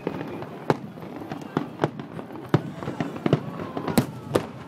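Aerial firework shells bursting in quick, irregular succession: a string of sharp bangs, the loudest about four seconds in.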